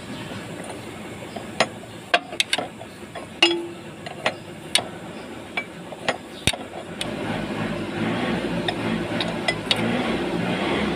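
Scattered sharp metallic clinks and taps of hand tools on metal, over a steady low rumble that grows louder from about seven seconds in.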